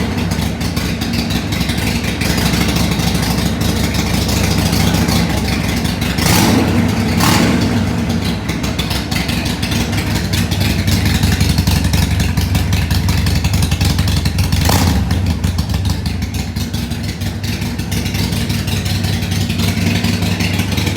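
Harley-Davidson Iron 883's air-cooled 883 cc V-twin running through aftermarket HD Radium exhaust pipes: a steady, deep low-pitched idle. Brief sharp noises cut across it about 6, 7 and 15 seconds in.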